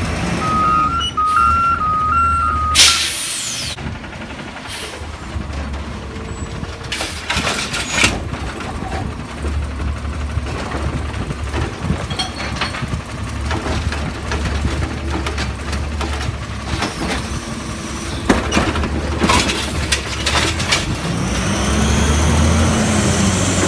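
Automated side-loading garbage truck working a curbside recycling cart. An alternating two-tone beeping alarm sounds for the first few seconds and is followed by a loud hiss of air. Under the diesel engine there are knocks and bangs as the hydraulic arm lifts and shakes out the cart, and near the end the engine revs up and back down as the truck pulls away.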